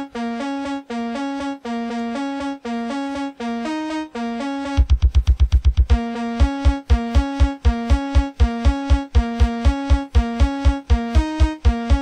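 Synthesized keyboard music with a repeating two-note bass figure under higher notes. About five seconds in, a fast run of low beats comes in, then settles into a steady low beat.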